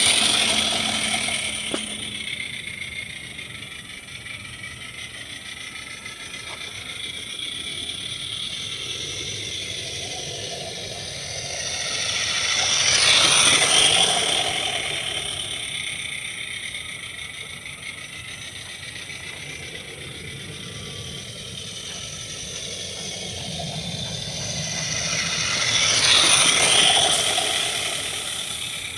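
Roundhouse Sammy live-steam model locomotive running laps of a garden track, its fitted chuffer giving a steady steam exhaust sound that grows loud as it passes close by, at the start, about halfway through and again near the end, and fades between passes.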